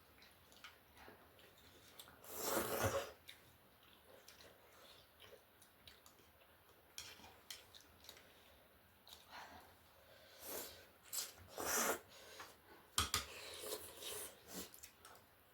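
Close-up eating sounds from a bowl of noodle soup and chicken wings: chewing and slurps, with sharp clicks of a spoon or chopsticks against the dishes. The noises come and go, with one louder slurp-like burst about two seconds in and a cluster of clicks and bursts near the end.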